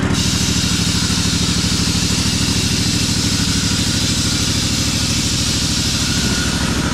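Kawasaki FR691V air-cooled V-twin engine on an Ariens Ikon XD zero-turn mower running steadily, warming up its oil after sitting cool overnight. A steady hiss sits over the engine note, starting sharply at the beginning and stopping near the end.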